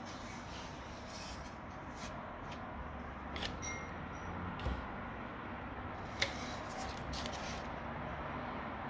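A few light clicks and rustles as a frying pan and its cardboard label are handled, over a steady background hiss; the sharpest click comes about six seconds in.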